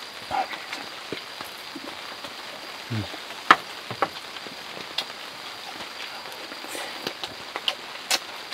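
Steady rain falling, with a few sharp taps and clicks scattered through it; the loudest comes about three and a half seconds in, and another near the end.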